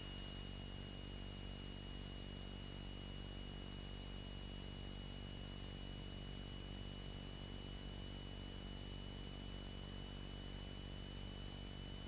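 Beechcraft Sundowner's four-cylinder Lycoming engine at full power on the takeoff roll, heard faintly through the cockpit intercom as a steady low hum under hiss, with a thin steady high whine on top.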